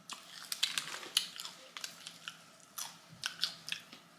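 A person chewing and biting into extra-crispy fried chicken wings close to the microphone, a quick run of sharp, irregular crunches and crackles.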